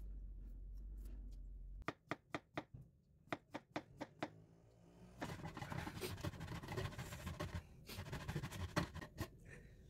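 A kitchen knife chopping a green plantain into rounds on a plastic cutting board, about ten quick strokes. From about halfway through, a block of white cheese (queso costeño) is rubbed down a stainless box grater, a steady scraping rasp in repeated strokes.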